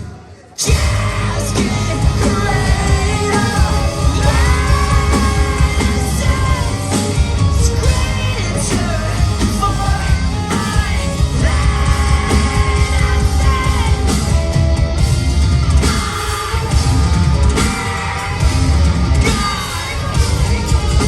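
Rock band playing live in a large hall: drums, guitars and bass with a high, gliding sung vocal that rises to shouts. The band cuts out for about half a second at the very start, then crashes back in together.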